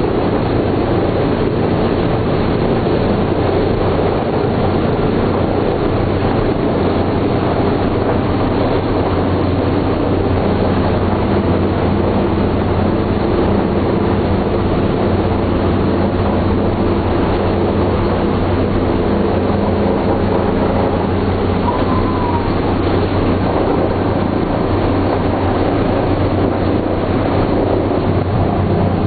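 The four Wright R-1820 Cyclone radial engines of a B-17G Flying Fortress running, heard from inside the fuselage as a steady, loud drone with a low hum, while the bomber taxis.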